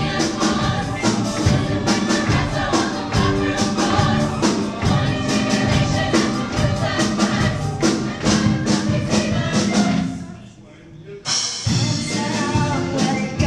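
Large mixed ensemble of singers performing a musical theatre number with band accompaniment and a steady beat. Near the end the music drops out for about a second, then the voices and band come back in together.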